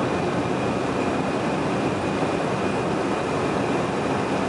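Steady driving noise inside an old pickup truck's cab at cruising speed: engine, tyres and wind blending into an even, unchanging noise, with a faint steady high tone above it.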